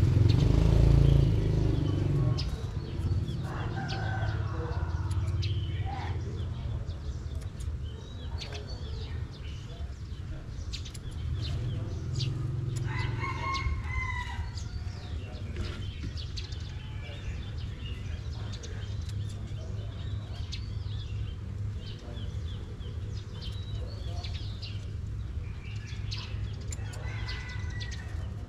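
A rooster crowing three times, each call about a second and a half long, over a steady low hum, with scattered sharp clicks of scissors snipping. A louder low rumble comes in the first two seconds.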